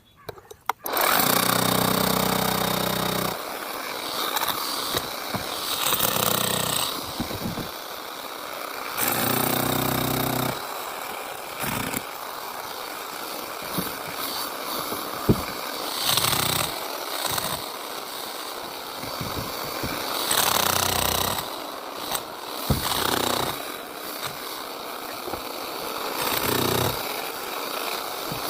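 Power tool working on concrete: a harsh, continuous noise that starts about a second in and swells and eases in spells, with a lower motor hum in a couple of stretches.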